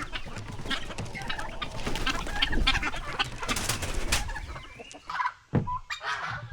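A flock of chickens clucking, with many short overlapping calls that thin out near the end.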